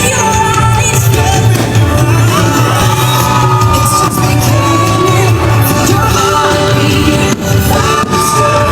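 Loud music from the fireworks show's soundtrack, with held melody notes over a steady bass pulse.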